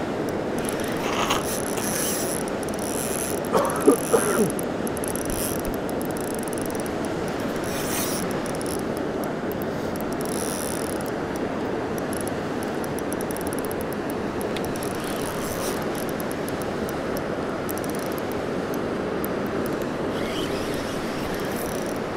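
Spinning reel being cranked, its gears whirring and clicking, over the steady rush of a fast-flowing river. A few brief louder sounds stand out about four seconds in.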